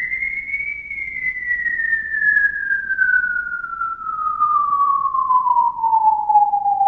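A single pure, whistle-like tone that rises briefly, peaks about a second in, then glides slowly and steadily down in pitch: an eerie theremin-style spooky sound effect.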